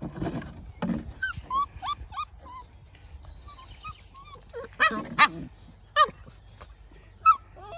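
Puppies whimpering and yipping with short, high cries that bend up and down in pitch; a quick run of the loudest yelps comes about five seconds in, with more around six and seven seconds.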